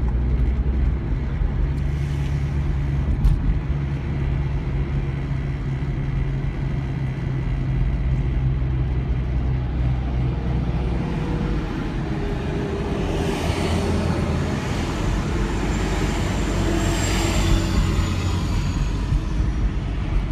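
Road traffic from a slow convoy of heavy trucks and escort vehicles: a steady low engine rumble, with vehicles passing twice, once about two-thirds of the way in and again near the end.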